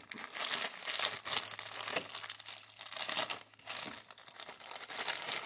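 Clear plastic bag crinkling and rustling as hands handle and open it to get at the small parts inside, in irregular crackles with a short pause a little past the middle.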